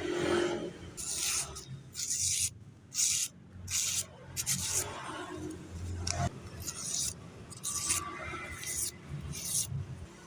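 A freshly sharpened knife blade drawn in about a dozen short, rasping strokes, roughly one a second, irregularly spaced.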